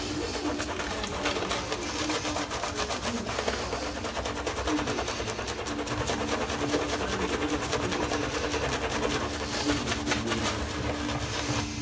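Shaving brush working lather onto the face: quick, rhythmic scrubbing strokes of wet, lathered bristles on skin.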